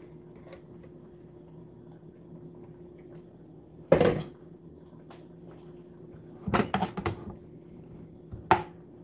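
Kitchen knocks: one loud knock about four seconds in, then a quick run of knocks and a single sharp one near the end as a chef's knife chops shredded chicken on a plastic cutting board.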